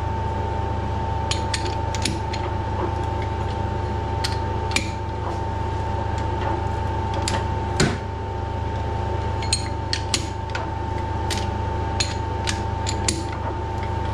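Hand threading die in a die stock cutting an oiled external thread, worked backwards and forwards: irregular sharp metal clicks and ticks as the die cuts and breaks the chips, one louder click about eight seconds in. A steady workshop hum runs underneath.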